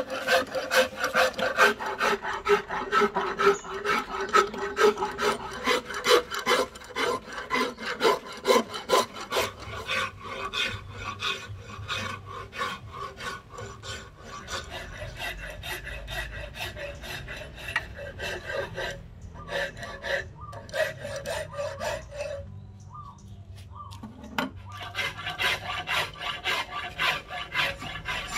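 Flat hand file rasping along a wooden axe handle of Millettia leucantha, back-and-forth scraping strokes in a steady rhythm of about two a second, with short pauses about two-thirds through.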